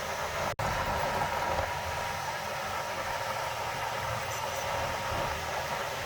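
Heavy earthmoving machinery's diesel engine running steadily, with a momentary dropout about half a second in.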